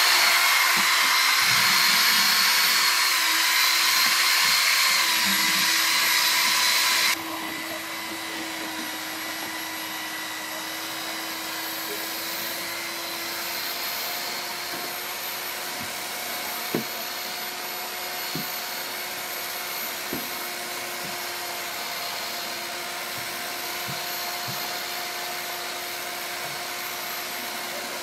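Handheld electric paddle mixer whirring steadily in a bucket of foam concrete mix as foam is poured in from a hose. About seven seconds in the whirring cuts off suddenly, leaving a quieter steady machine hum with a few faint ticks.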